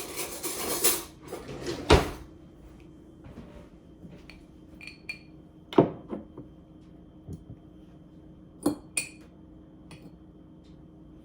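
Metal cutlery rattling as a fork is fetched, then a loud knock about two seconds in and a few scattered sharp clinks of the fork and kitchenware.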